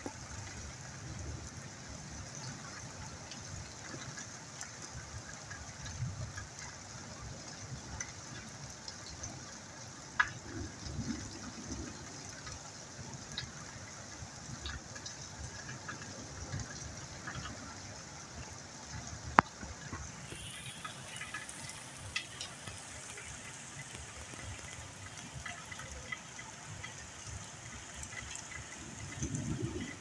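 Steady rain falling on wet ground and puddles, an even hiss, with a couple of sharp clicks, one about ten seconds in and a louder one about two-thirds of the way through.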